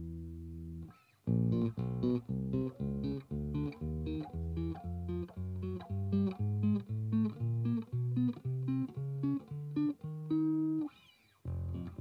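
Yamaha PB-600 electric bass from 1980 played fingerstyle: a held note stops about a second in, then a line of short, separate notes at about three a second, a longer note and a brief pause near the end, and the line starts again.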